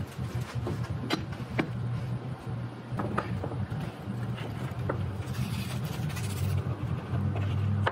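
Painter's tape being pulled off the roll, a brief ripping hiss about five and a half seconds in, among light taps and clicks of small wooden pieces being handled, over a steady low hum.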